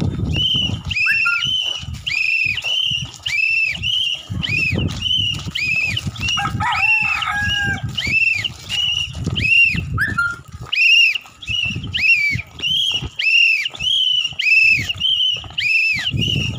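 A whistle blown in a steady rhythm of short blasts, about two a second, each blast rising and then falling in pitch.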